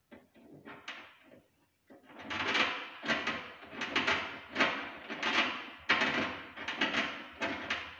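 Braided flexible hose being screwed by hand into a kitchen sink mixer's threaded inlet: a rhythmic scraping with each twist, about one and a half strokes a second, starting about two seconds in after a few soft clicks.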